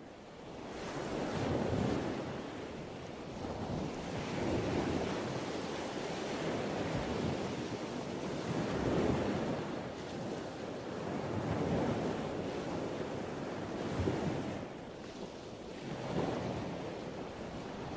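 Sea waves washing, rising and falling in swells every few seconds with a windy hiss; it fades in from silence at the start.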